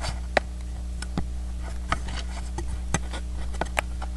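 Scattered small clicks and taps from handling a taped mirror assembly, roughly one or two a second, over a steady low hum.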